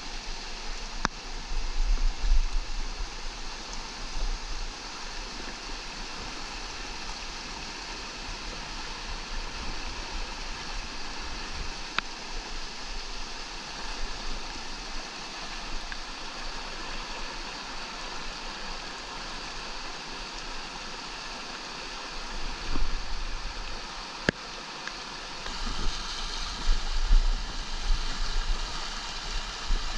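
Mountain creek rushing over boulders and small cascades, a steady hiss of white water. Low bumps break in about two seconds in and again over the last several seconds.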